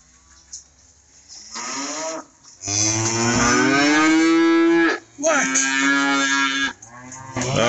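Hereford-type cattle bawling for their morning feed: a short moo about a second and a half in, then two long loud moos, and another starting near the end.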